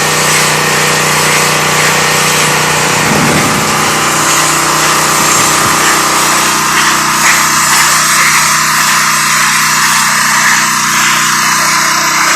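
Pressure washer running steadily: its small engine drones under the hiss of the high-pressure water spray.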